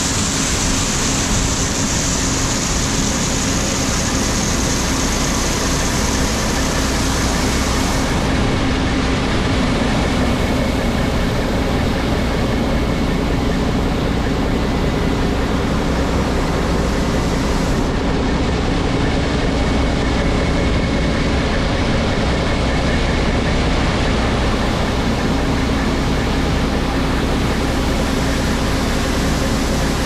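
Large diesel harvest machinery running steadily: a loud low drone with a steady hum. A high hiss drops away about eight seconds in.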